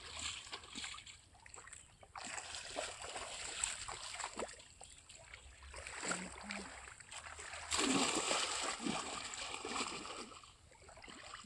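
Shallow, muddy paddy water splashing and sloshing as hands churn and scoop through it, uneven throughout, with the loudest splashing about two-thirds of the way in.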